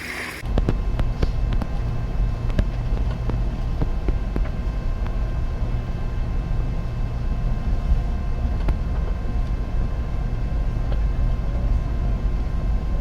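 Train riding along the rails: a steady low rumble with a faint steady whine above it and scattered clicks and knocks, starting suddenly about half a second in.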